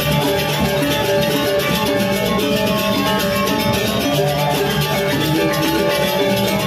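Balinese gamelan playing without a break: ringing metallophone and gong tones over busy, rapid percussion.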